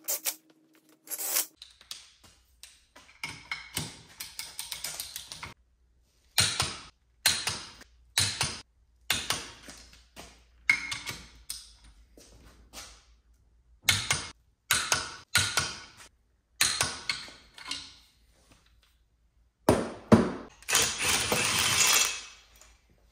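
Hand work on a Rotax 787 two-stroke engine: irregular metal clinks, clicks and knocks from parts and tools as the exhaust manifold is lined up on the cylinders, with a denser rattle of about two seconds near the end.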